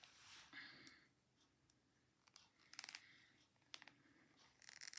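Faint clicks and taps of double-pointed knitting needles as stitches are knitted two together, a few scattered clicks with a small cluster near the end.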